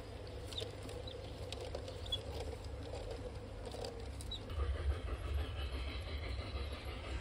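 LGB G-scale model train wagons rolling past on garden track, with light scattered clicks of the wheels over the rails and a faint hum. About four and a half seconds in this gives way to a steadier low rumble with a faint whine.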